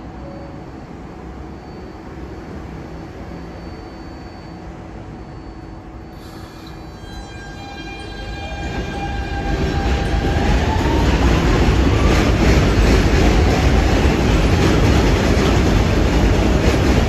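New York City Subway train idling with a steady electrical hum, then pulling out. About seven seconds in, its electric traction motors give a rising, stepped whine. The wheels then build into a loud steady rumble with clickety-clack from the rail joints as the train gathers speed.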